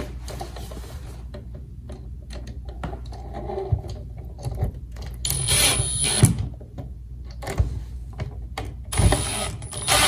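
Small cordless driver running in two short bursts, about five seconds in and again near the end, driving the outlet's mounting screws into the box, with a steady high whine from its motor in the first burst. Light handling knocks and rubbing come between the bursts.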